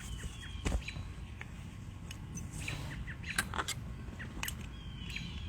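AR-15 rifle parts being handled during disassembly: scattered light metallic clicks and knocks, a few sharp ones spread through, over a low steady background.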